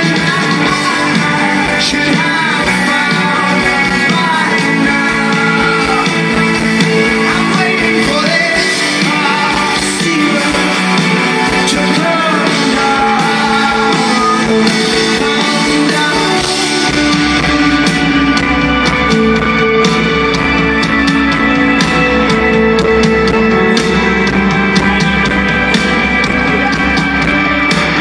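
Live rock band playing a song, with a lead singer over guitars, bass and drums, recorded on a camera phone at a concert. About two-thirds of the way through, the bass and drums come in much heavier.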